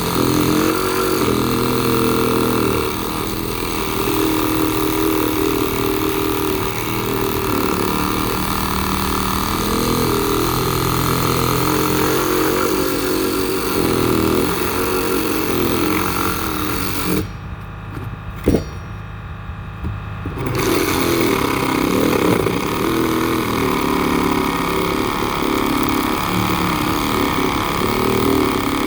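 Makita JR101D cordless reciprocating saw running and cutting through wood. It stops for about three seconds about two-thirds of the way in, with a single knock, then starts cutting again. It has a hard time with the cut, which the owner puts down to probably hard wood and a probably weak battery.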